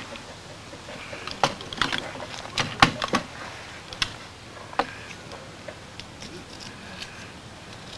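Sharp clicks and knocks of sling hardware being handled and fitted on an M4-style rifle: a quick run of them over a few seconds, the loudest about three seconds in, with a couple more near four and five seconds.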